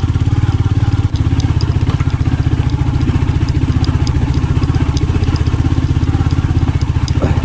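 Motorcycle engine running at a steady, unchanging pitch, heard close up with a fast, even firing pulse.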